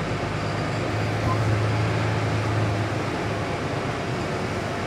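Lorry's diesel engine running at low speed during a slow, tight manoeuvre, a steady low hum that grows louder for a couple of seconds from about one second in.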